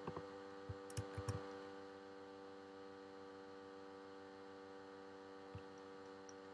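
Steady electrical mains hum in the recording, with a few faint short clicks in the first second and a half and one more near the end.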